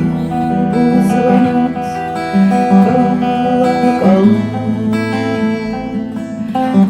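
Acoustic guitar strumming chords as a bard-song accompaniment, with no singing.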